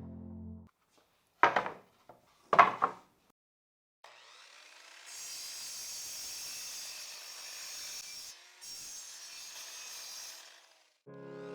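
Two short clattering knocks of wood, then a steady rasping of a tool working wood, sawing or sanding, lasting about seven seconds with a brief break partway through.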